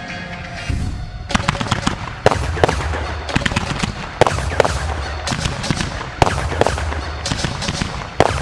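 Fireworks firing in rapid volleys: sharp shots and crackling from comets and crackle effects, starting about a second in, with loud reports roughly every two seconds. Music plays underneath.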